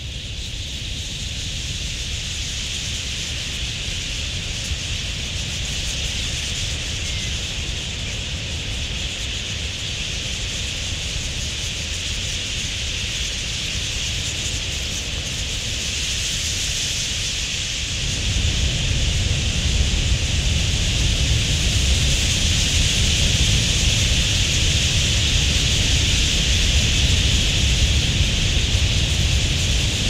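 A huge flock of wild budgerigars calling all at once: a dense, unbroken high chatter from thousands of birds. About two-thirds of the way through, a low rushing sound comes in under it and the whole gets louder.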